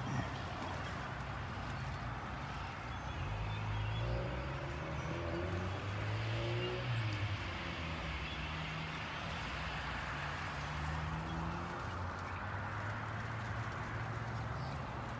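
Vehicle engine running with a steady low hum that shifts in pitch a little between about four and seven seconds in, over an even higher hiss.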